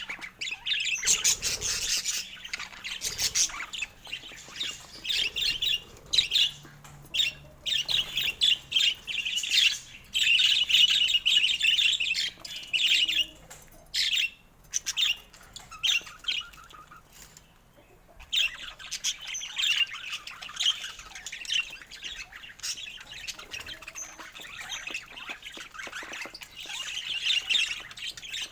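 Budgerigar chattering: rapid high chirps and squawks in dense bursts, with a lull of a few seconds about halfway through.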